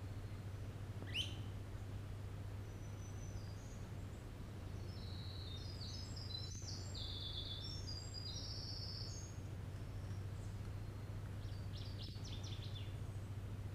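Winter wren singing its long song, a run of rapid high trills and twitters lasting about seven seconds. A single sharp rising note comes about a second in, and a short burst of high notes near the end. A steady low hum runs underneath.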